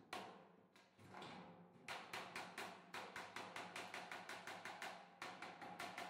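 Hand hammer striking the steel top rim of a washing-machine drum against a metal bar held inside it. A few spaced blows come first, then from about two seconds in a fast, even run of about four blows a second, with a short break near five seconds.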